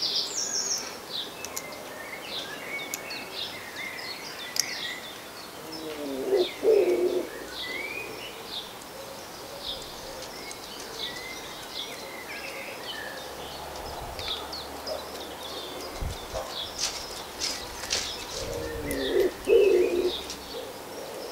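Small birds chirping and twittering on and off, with a dove cooing twice: a phrase about six seconds in and another near the end.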